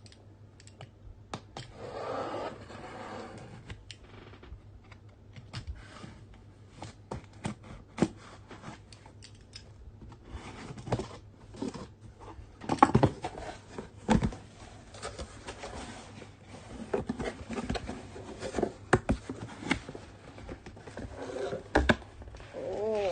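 A cardboard shipping package being cut and opened by hand: a string of irregular clicks, scrapes and scratches of tape and cardboard, with a longer rasping stretch about two seconds in.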